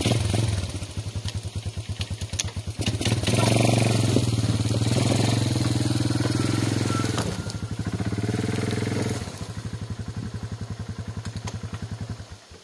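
Yamaha Moto-4 ATV's single-cylinder four-stroke engine pulling a trailer heavily loaded with logs. It revs up under the load twice, settles back to a lower, even running, then stops near the end.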